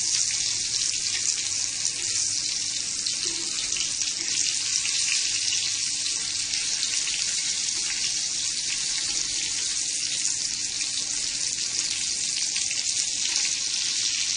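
Cornflake-crumbed chicken nuggets shallow-frying in hot oil: a steady sizzle with fine crackling.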